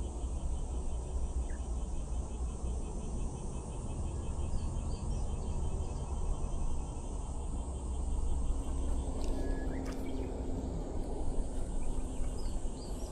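Steady outdoor background noise with a low rumble, with faint insects chirping in a repeating pattern.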